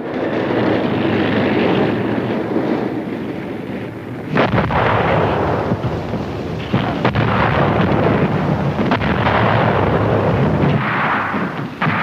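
War-footage battle sounds: a continuous rumble of artillery fire and gunfire, with several sudden sharp blasts breaking through.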